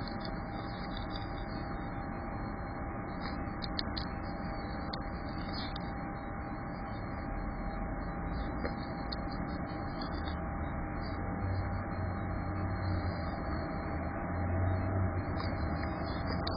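Steady hiss with a steady mid-pitched hum. A low hum comes in about eleven seconds in and grows louder toward the end. No bird sound stands out.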